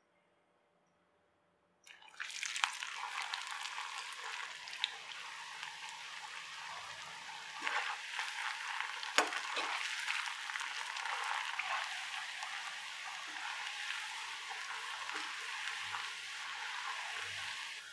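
Batter-coated cauliflower florets deep-frying in hot oil: a loud, steady sizzle that starts suddenly about two seconds in as the florets go into the oil. A few sharp clicks come from a metal skimmer knocking against the pan as they are stirred.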